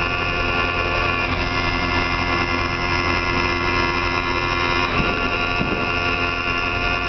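CNC milling machine's end mill cutting aluminium: a steady spindle whine made of many held high tones over a constant low hum, with a brief change in the cut about five seconds in.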